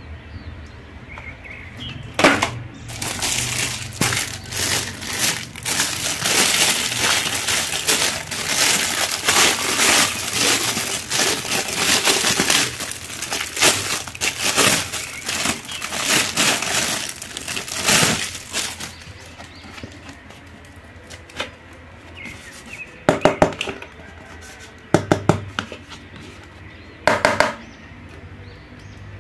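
Clear plastic bags crinkling and crackling as plastic masks are pulled out of them by hand: a dense, continuous crinkle for most of the first two-thirds, then a few short crinkles near the end.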